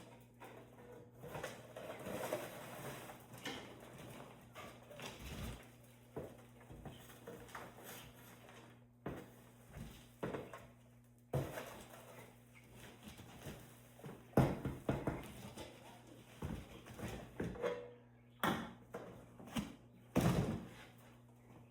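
Quail cage droppings trays being scraped out and slid in and out: a run of irregular scrapes, knocks and rattles, a few sharper bangs in the second half. A steady low hum runs underneath.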